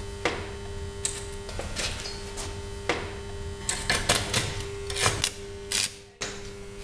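Stick (arc) welder electrode being scratched and tapped on steel to strike the arc: a string of sharp crackles and pops over a steady hum. Near the end the arc catches and settles into an even sizzle.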